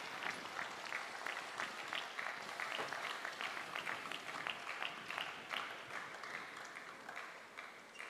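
Arena crowd applauding a won point in a table tennis match. The clapping slowly dies away and stops near the end.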